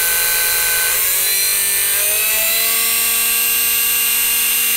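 Small brushed DC electric motor from a children's ride-on car, running free on the bench at about 6 volts. It makes a steady whine that rises in pitch from about a second in as the supply voltage is turned up, then holds at the higher speed. It runs normally.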